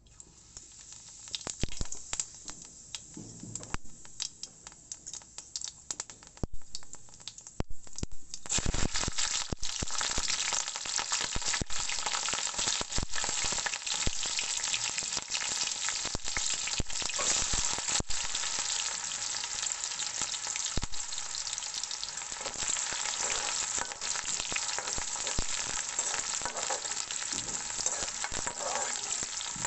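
Potatoes frying in hot oil in a pan for aloo bhujia, with a spatula stirring. At first there are scattered crackles and clicks; about eight seconds in the sizzling swells sharply and then keeps on steadily, with the stirring clicks running through it.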